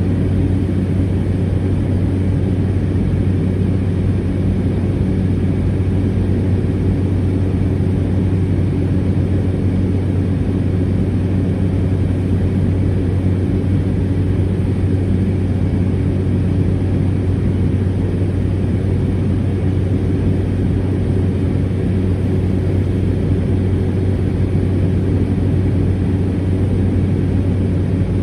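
Cessna 208 Caravan's single PT6A turboprop engine and propeller running at steady power: a constant deep drone with a strong low hum that does not change.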